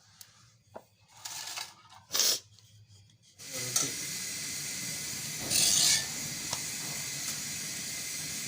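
A few short rubbing and scraping noises, then from about a third of the way in a steady hiss, briefly louder around the middle.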